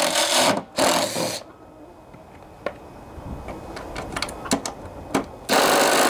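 Cordless driver running in short bursts to loosen a metric belt-guard bolt on a riding mower's cutting deck: it runs for about a second and a half at the start, then comes a few seconds of small clicks and taps, and it runs again from about five and a half seconds in.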